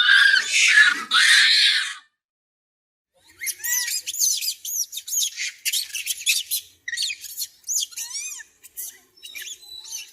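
Monkey calls: about two seconds of loud, harsh screeching, a short silence, then a long run of rapid, high-pitched chirps and squeaks that rise and fall in pitch.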